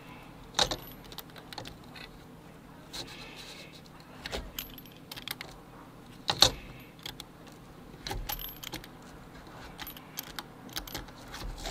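Screen spline roller tool rolled along an aluminum screen frame, pressing rubber spline into the channel over fiberglass screen: scattered metallic clicks and light jingling rattles from the roller's steel wheel, with a sharper knock about half a second in and another about six and a half seconds in.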